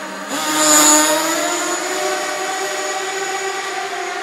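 Kyosho Fazer FXX radio-controlled car's engine revving up, rising in pitch to its loudest about a second in, then running at a steady high pitch, in a concrete underground car park.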